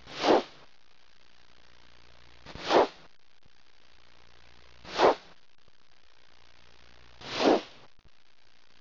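Four whoosh sound effects, about two and a half seconds apart, each swelling and fading within about half a second, over a faint steady hum.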